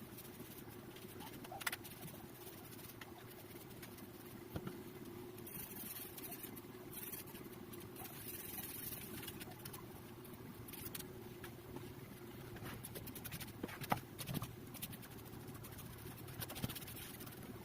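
Faint scratching and scattered small clicks and knocks, as of hands and tools handling an object, over a steady low hum.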